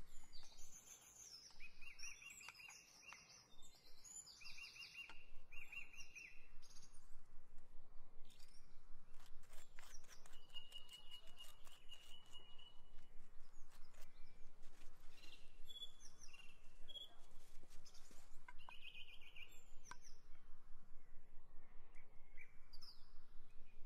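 Small birds chirping and singing in short repeated phrases, most active in the first several seconds, over light clicks and scrapes of a wooden spoon working food.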